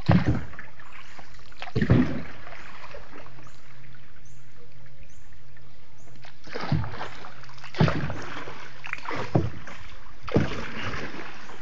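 A small boat being paddled through floodwater: about six splashing paddle strokes at uneven intervals, over a faint steady low hum.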